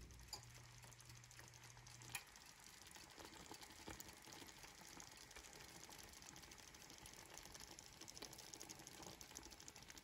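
Faint crackling and popping of thick coconut rice pudding (arroz con dulce) simmering in an open pot: many tiny bubble pops, growing denser in the second half. A low hum stops about two seconds in.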